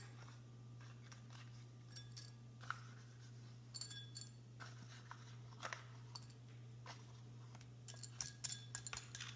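Faint, scattered clinks and taps of dishes and a utensil as cat food is prepared, over a steady low hum.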